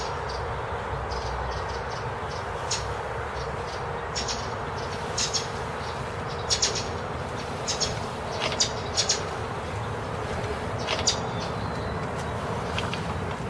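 Steady background noise with a faint hum, and about a dozen short, high bird chirps scattered through it, some in quick pairs.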